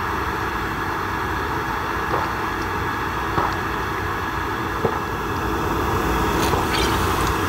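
A long swig straight from a glass bottle: a few faint gulps over a steady rushing hiss.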